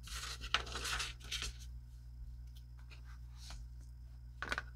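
Handling noise of a hand adjusting a wristwatch on a strap, skin and strap rubbing and scuffing, mostly in the first second and a half, with a brief scuff near the end.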